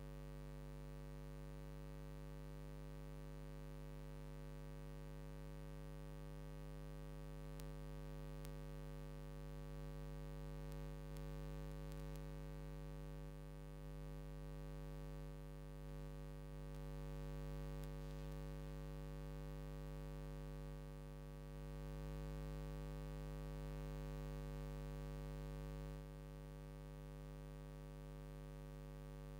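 Steady electrical hum with a faint hiss behind it, a little louder through the middle and dropping back near the end.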